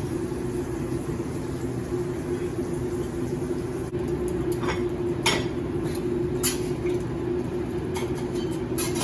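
A steady mechanical hum of kitchen equipment, with a few sharp clinks of utensils and dishes from about halfway through.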